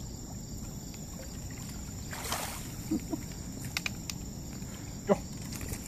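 Insects chirping steadily over outdoor background noise, with a brief rustle about two seconds in and a few faint ticks.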